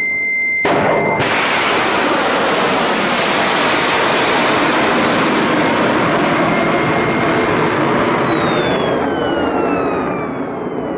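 A high steady tone cuts off about a second in as a ship-launched missile's rocket motor ignites with a sudden, loud roar. The roar holds steady for several seconds as the missile climbs, then eases near the end while a high tone slides downward.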